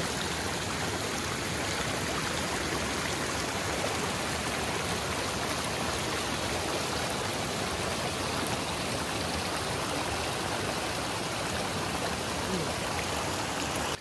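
Snowmelt stream rushing steadily.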